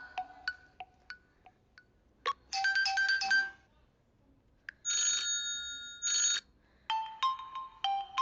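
Huawei phone ringtones playing in turn. Fading echoing notes give way to a short chiming phrase about two and a half seconds in, then two identical brief rings a second apart, then a new stepping melody of notes that starts near the end.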